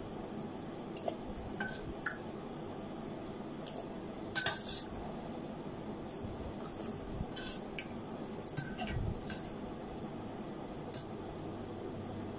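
Metal spoon and fork clinking against a large stainless steel bowl of noodle soup: about ten scattered light clinks, the loudest a little over four seconds in.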